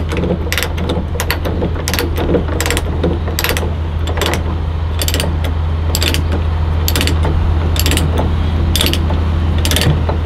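Ratchet load binder being cranked to tighten a tie-down chain, its pawl clicking about once or twice a second, over a steady low drone.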